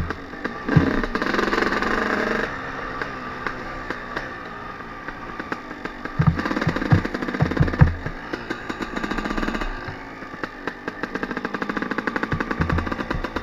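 Suzuki RM250 single-cylinder two-stroke dirt bike engine running under throttle, swelling in louder pulls about a second in and again about six seconds in, with a cluster of low thumps as the bike rides over rough stony ground.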